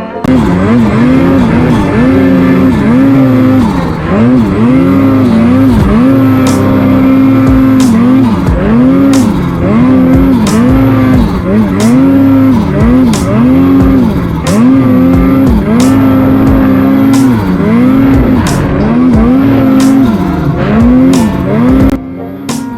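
Background music with a repeating, bending melody over a steady beat.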